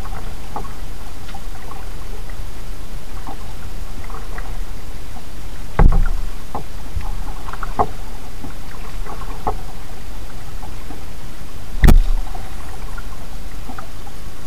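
Kayak paddling: the paddle dipping and water dripping in small splashes and clicks over a steady low rumble, with two loud knocks of the paddle against the kayak, about six seconds apart.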